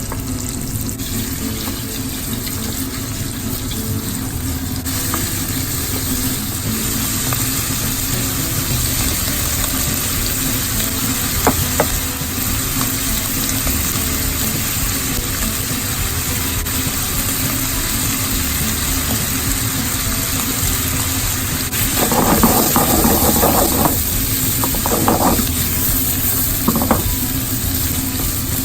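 Food sizzling steadily in a hot frying pan, with occasional clinks of a utensil and a short burst of clattering and scraping about three quarters of the way through.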